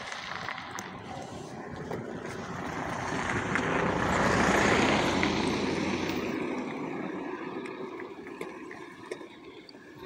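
A vehicle passes by: a broad noise swells to a peak about four to five seconds in, then fades away. Footsteps on an asphalt path click faintly under it.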